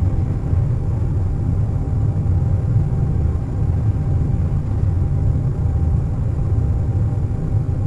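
Airliner cabin noise at cruise: a steady low rumbling roar of engines and airflow, with a faint steady hum and no distinct events.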